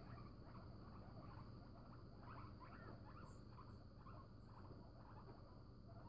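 Faint guinea pig squeaks, a scattered run of short high chirps, over a low steady background hum.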